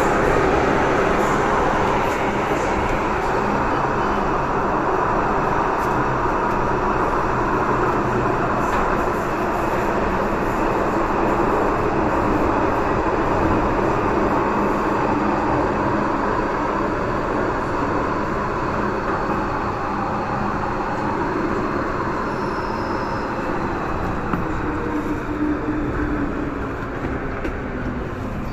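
MTR M-train electric multiple unit running at speed: a steady rumble of wheels on rail and running gear, easing slightly in level toward the end.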